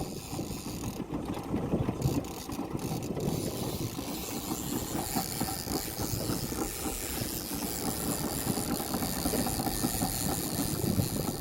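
A boat's motor running steadily while trolling, a low rumble under a choppy hiss of wind and water.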